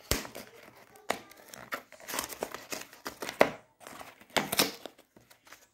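Small cardboard box sealed with adhesive tape being pried and torn open by hand: irregular crinkling, scraping and tearing, with a few sharper louder snaps.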